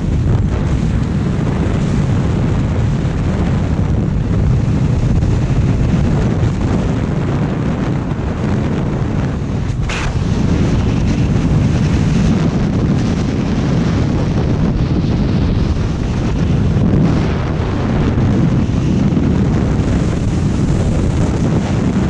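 Loud, steady rush of freefall wind buffeting a skydiver's helmet-mounted camera microphone. A brief sharp noise cuts through about ten seconds in.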